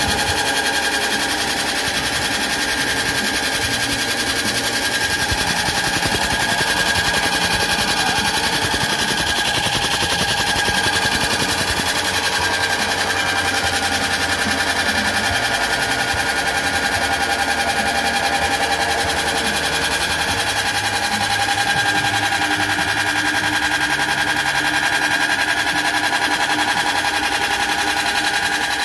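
Electric soybean dehulling machine running, with a steady hum and a fast, continuous rattle as soaked soybeans are fed through it, split and stripped of their skins.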